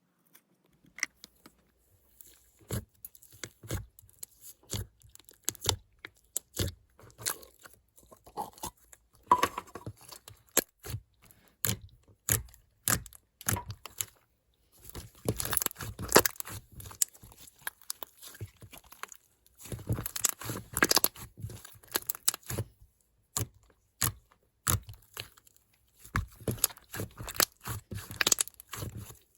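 Slime being squeezed, poked and stretched by hand: a string of sharp clicks and crackles that come in dense bursts with short quiet gaps.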